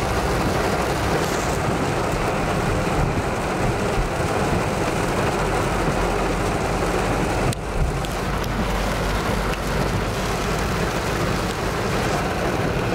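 Heavy rain pelting the car's roof and windshield, heard from inside the cabin over the low rumble of the car driving on a wet road.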